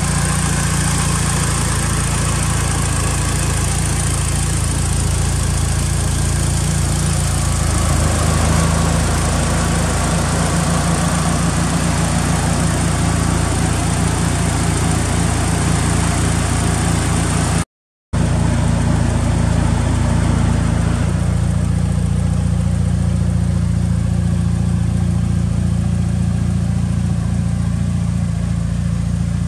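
Mitsubishi Lancer Evolution VIII MR's turbocharged 4G63 inline-four, a G-Force built complete engine, idling steadily. The sound breaks off for a split second about two-thirds of the way through, then the same even idle carries on.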